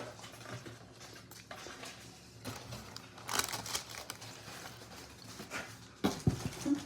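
Faint scattered rustling and soft clicks, like food and wrapper being handled, with a slightly louder cluster about three and a half seconds in.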